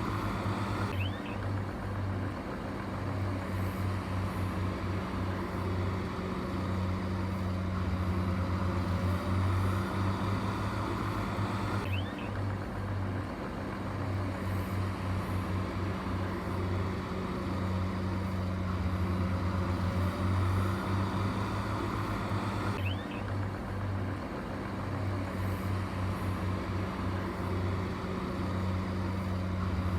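Heavy construction machine's diesel engine running steadily, a low pulsing hum, with abrupt changes in its sound about every eleven seconds.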